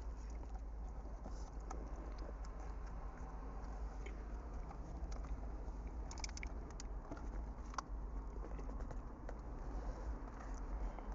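Eating sounds: someone chewing food, with scattered small clicks and taps, over a steady low hum.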